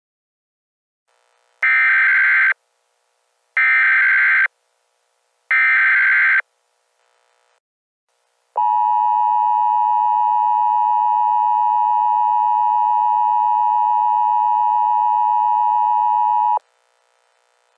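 Emergency Alert System signal: three short bursts of screeching SAME data tones about a second apart, then the EAS attention signal, a steady two-tone alarm of 853 and 960 Hz held for about eight seconds before cutting off. Together these are the encoded header and alert tone that open an EAS test message.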